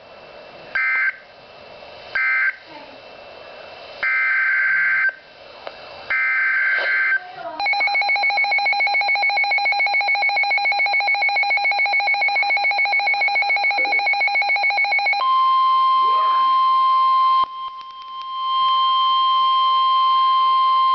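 NOAA Weather Radio emergency alert signalling: three short raspy digital data bursts ending one warning, then two longer SAME header bursts announcing the next tornado warning. A weather radio receiver follows with about seven seconds of rapid pulsing alarm beeps, then the steady 1050 Hz weather warning alarm tone sounds, cutting out briefly and resuming near the end.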